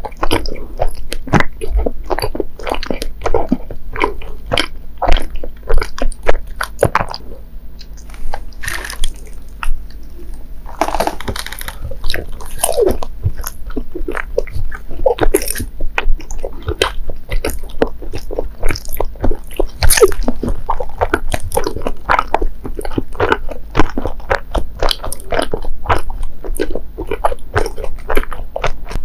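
Close-miked chewing of soft, sticky mochi sweets: a dense run of quick wet clicks and smacks of the mouth. A brief rustle comes about eleven seconds in, and a bite into a mugwort kashiwa mochi near the end.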